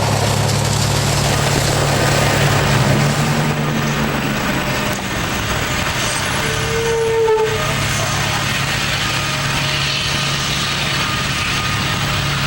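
Fire engine's diesel running steadily under a constant rushing hiss. A short, steady tone sounds about halfway through.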